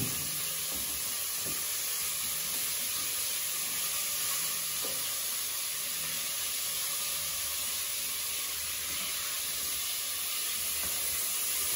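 Chunks of venison sizzling steadily in hot oil in a stainless steel pot as they are stirred. The pot is on a very hot ring and the meat is starting to burn.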